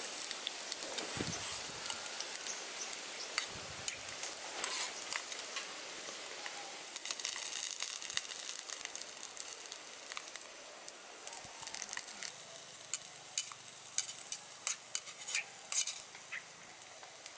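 Food sizzling as it fries in a pan, with scattered sharp crackles and taps that come more often in the last few seconds.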